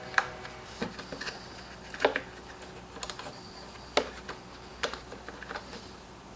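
Irregular light clicks and taps of small plastic and metal parts being handled while a leaf blower is put back together, with sharper knocks about two seconds and four seconds in, over a faint steady hum.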